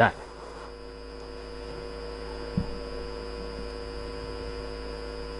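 Steady electrical hum made of several fixed tones, with one soft low knock about two and a half seconds in.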